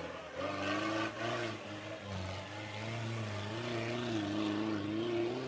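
Off-road 4x4's engine revving under load on a steep hill climb, its pitch repeatedly rising and dipping.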